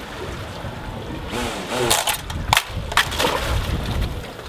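A quadcopter drone crashing just after launch: a few sharp knocks and clatters about two to three seconds in, amid rushing noise and a brief voice.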